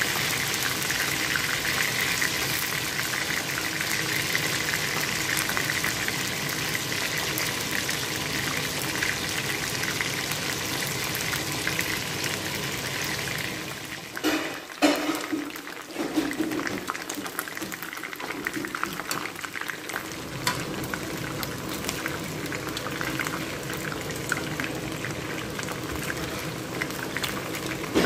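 Chicken wings deep-frying in hot oil in a pan, giving a steady sizzle and bubble. About halfway there is a brief break. After it the frying goes on with more crackling and popping.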